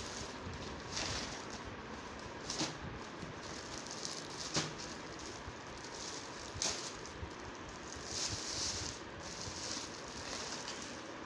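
Clear plastic packaging crinkling and rustling in irregular bursts as hands unwrap a new backpack, with a couple of sharp crackles.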